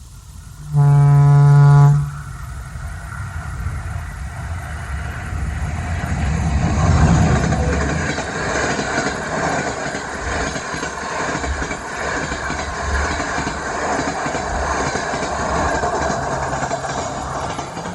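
A train horn sounds once, a steady note lasting about a second, then the running noise of a moving train builds up and carries on steadily.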